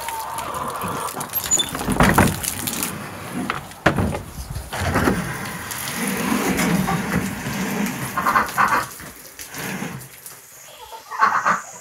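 Farm animals calling, mixed with scattered knocks and clatter.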